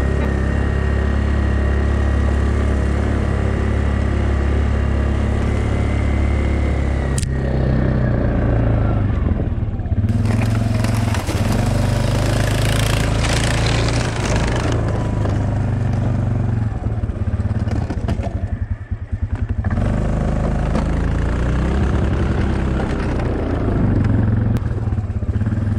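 2007 Yamaha Kodiak ATV engine running steadily as the quad pushes snow with its front plow blade. About ten seconds in the engine sound is overlaid by a harsher, hissing noise for several seconds.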